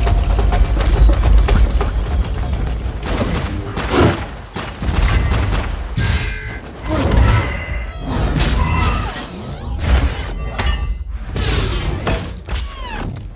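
Film battle-scene sound mix: a music score under a rapid run of impacts, crashes and booms from a fight against metal robots, over a heavy low rumble.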